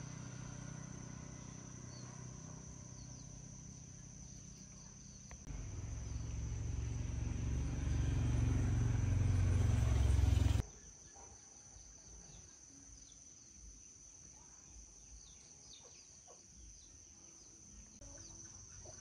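A low, steady machine hum that grows louder from about five seconds in and cuts off abruptly about halfway through, leaving crickets and other insects chirping.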